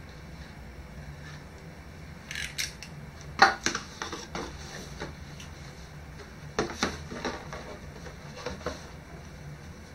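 A utility knife slitting the tape on a cardboard box, then the cardboard flaps and inner packaging opened and handled, in a few short clusters of sharp scrapes and knocks. The loudest knock comes about three and a half seconds in, over a steady low hum.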